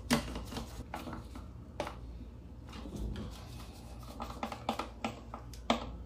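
Scattered light clicks and scrapes of wires being handled and fitted into the screw terminals of a motor contactor, about half a dozen small knocks spread through the stretch.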